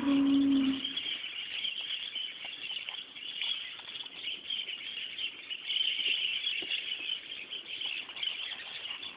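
Dogs play-wrestling: a short pitched dog vocalization in the first second, then faint scuffling ticks, over a steady high-pitched chirring in the background.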